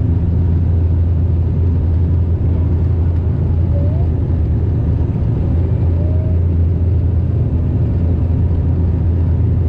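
Steady, loud, low drone of a DHC-8 Q400's two turboprop engines and propellers heard inside the passenger cabin in flight.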